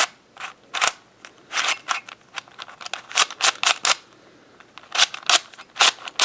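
A plastic 3x3x4 cuboid twisty puzzle being turned by hand: a quick, irregular run of short scraping plastic clacks as its layers are twisted, with a brief pause a little after the middle.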